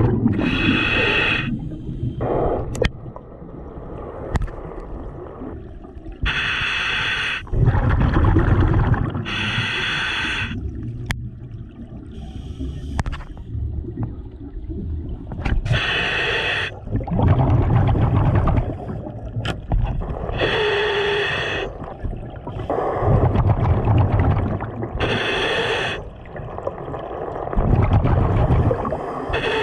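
Scuba regulator breathing underwater: about six slow breath cycles, each a short hiss of inhalation through the regulator followed by a louder low bubbling rumble of exhaled bubbles.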